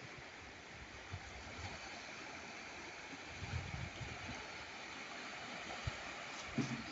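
Small waves lapping and washing on a pebbly shore, a steady rushing wash of water, with a few short low thumps in the second half.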